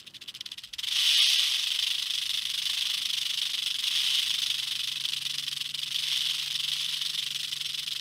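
Rattlesnake buzzing its raised tail rattle: a few separate clicks that run together about a second in into a steady, continuous dry buzz. It is the snake's defensive warning sound, given from a tight coil.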